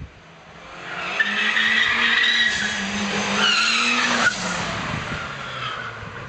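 Car with a 1.8T turbocharged engine driving past hard, its tyres squealing about a second in. The engine note holds steady, then drops and fades as the car pulls away.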